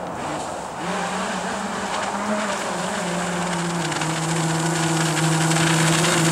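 Electric jet drive of a DIY jet kayak, brushless motors spinning a water-jet impeller, running at speed: a steady motor hum over the hiss of the water jet and spray. It starts about a second in, grows louder as the boat comes closer, and drops slightly in pitch about three seconds in.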